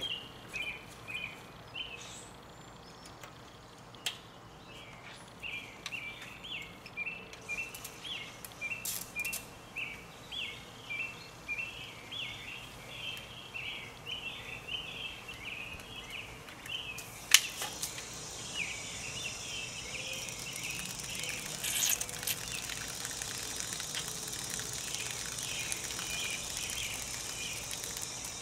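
A songbird singing repeated short, chirpy phrases. About 17 seconds in there is a sharp click, and after it a soft, steady hiss of water running out of a pressure washer's spray wand with the engine off, purging air from the pump.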